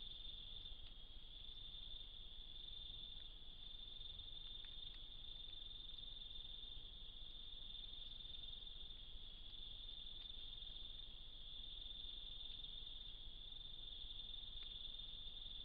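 Steady night-time insect chorus, one continuous shrill high trill, with a few faint scattered ticks.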